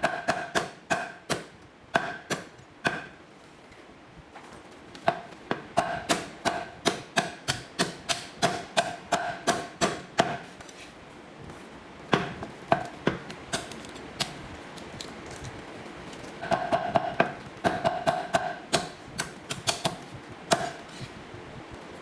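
Meat cleaver chopping roast duck on a board: runs of sharp, quick chops, many with a ringing metallic note from the blade, broken by short pauses.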